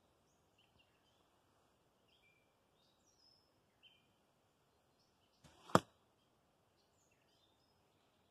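A flu-flu arrow (heavy cedar shaft, large untrimmed feathers) rushes through the air for a fraction of a second and hits the straw-bale target with a sharp smack, about five and a half seconds in. Faint bird chirps are heard throughout.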